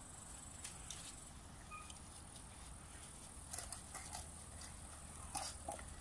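Rhodesian ridgeback puppies eating from stainless steel bowls: faint scattered clicks and taps of muzzles and bowls. They bunch up about three and a half seconds in and again near the end.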